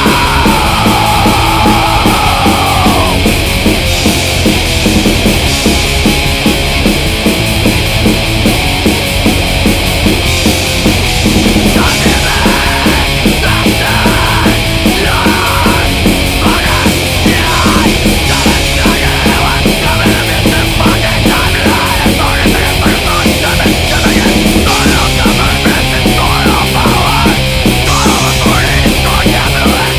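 Loud punk/heavy-metal band music with no sung words: distorted guitar, bass and drums. A falling pitch glide runs over the first three seconds.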